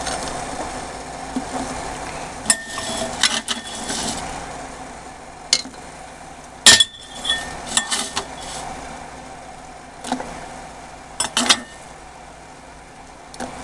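Metal spoon clinking and scraping against a ceramic bowl and the rim of a stainless steel pot as broken dry ramen noodles are scooped up and dropped into the pot: about ten irregular sharp clinks, the loudest about halfway through.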